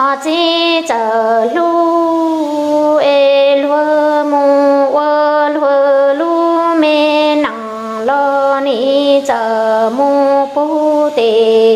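A woman's solo voice singing Hmong kwv txhiaj (sung poetry), with no instruments heard, in long held notes that step up and down and waver in pitch, broken by a few short breaths.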